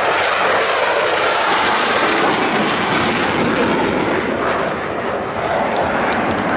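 Blue Angels F/A-18 Super Hornet jets flying over the show, a loud, steady jet roar that eases slightly about five seconds in.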